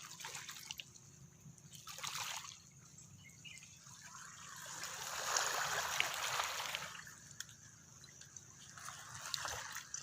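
Water sloshing and trickling in soft swells, the longest about halfway through, with a few small clicks.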